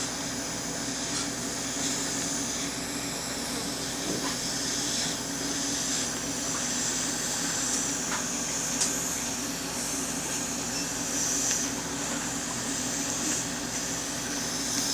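Steady hissing background noise with a low hum underneath, unchanging throughout.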